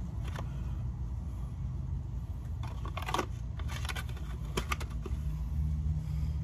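A few light clicks and taps of parts being handled by hand, the clearest about three seconds in and a cluster around four to five seconds, over a steady low rumble.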